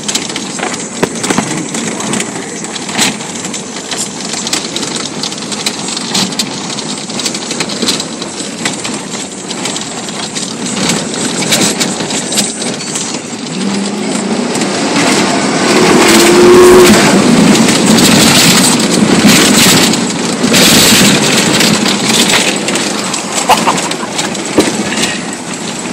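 Cadillac Escalade driving off-road across a rough grass field, heard from inside the cabin: steady engine and tyre noise with frequent knocks and rattles over the bumps. It grows louder about halfway through.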